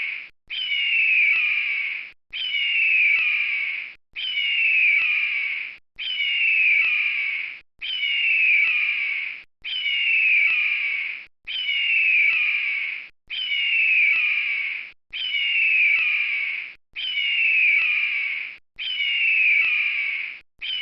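A bird of prey's scream: a descending, slightly rough whistle about a second and a half long. It repeats identically about every 1.8 seconds, a looped recording of one call, about eleven times in a row.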